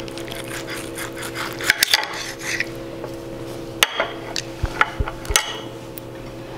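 Steel knife and fork scraping and clinking on a ceramic plate while a breaded cutlet is cut, with a handful of sharp clicks in the middle of the stretch.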